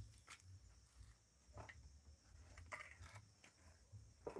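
Near silence: faint, steady chirring of crickets, with a few soft clicks and a low rumble.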